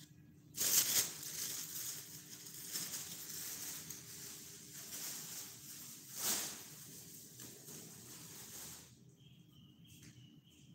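Rustling and scuffing noise that starts sharply about half a second in, swells again about six seconds in, and fades out near the end.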